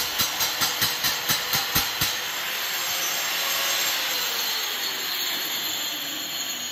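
Handheld angle grinder running, its disc struck against a reinforced-concrete ceiling about four times a second to hack small nicks into the slab. After about two seconds the strikes stop and the grinder runs on steadily.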